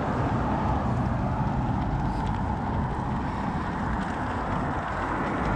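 Steady rush of wind and road noise on a camera mounted on a moving bicycle's handlebar.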